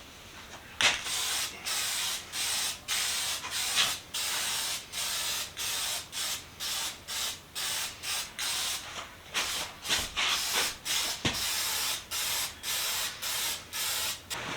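Lacquer sprayed onto freshly restored pipe wrench parts in many short hissing bursts, about two a second, as a protective coat against flash rust.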